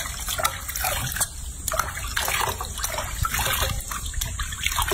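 Water splashing and trickling in a sink as hands scrub and rinse a baby monkey, in irregular short splashes.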